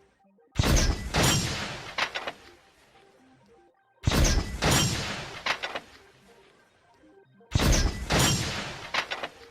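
A loud crashing, booming sound effect repeated three times, about every three and a half seconds. Each hit starts suddenly with a sharp crack, has a second crack about half a second later, and dies away over about two seconds.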